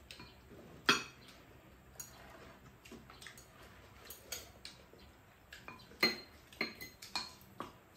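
Spoons and chopsticks clinking and scraping against ceramic bowls during a meal: scattered sharp clinks roughly once a second, the loudest a little under a second in and about six seconds in, coming closer together near the end.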